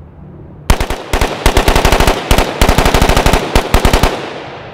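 Rapid gunfire: a fast string of shots at roughly ten a second, with a few brief pauses, starting under a second in and stopping about four seconds in.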